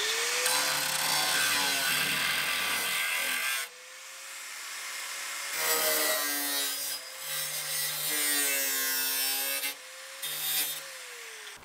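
Handheld grinder cutting back the car's sheet metal where the new fender is hitting, to make it fit. Its motor whine rises as it spins up, the grinding noise stops about three and a half seconds in while it keeps spinning, then bites into the metal again in a few stretches before winding down near the end.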